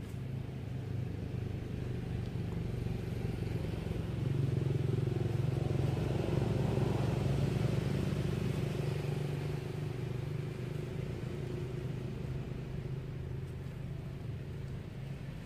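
A motor vehicle's engine running steadily with a low hum. It grows louder about four seconds in, then slowly fades, as if the vehicle passes by.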